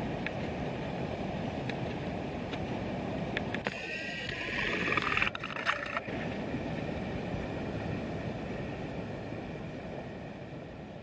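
Steady rushing of river water, with a brief louder, higher-pitched burst between about four and six seconds in; the sound slowly fades toward the end.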